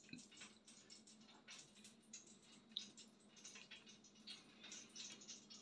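Near silence with faint, scattered soft squishes and small clicks as marinated chicken pieces are handled in a creamy yoghurt-and-cream marinade and pushed onto a wooden skewer, over a faint steady hum.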